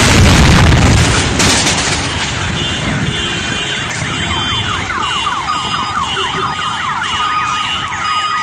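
A car bomb detonating: a sudden, very loud blast with a deep rumble that dies away over about a second and a half. After a few seconds, car alarms set off by the blast start up, with steady beeping tones and rapid repeated falling chirps.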